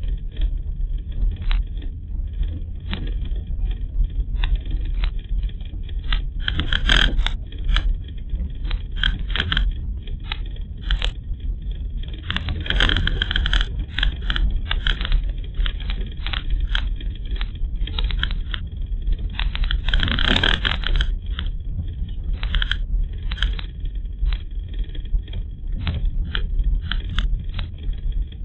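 Car driving on a rough, overgrown lane, heard from a dashcam inside: a steady low rumble with frequent irregular knocks and rattles, and three longer scraping bursts about 7, 13 and 20 seconds in.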